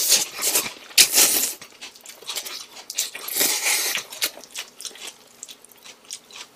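Slurping and chewing of noodles close to the microphone, in irregular noisy bursts: one at the start, one about a second in, and a longer one around three seconds in.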